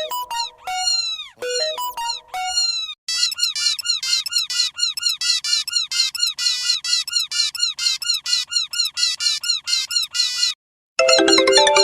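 Electronic sound effects: repeated chirps whose pitch arches up and falls away, then a fast, steady string of short beeping tones that stops near the end, followed by a louder cluster of tones.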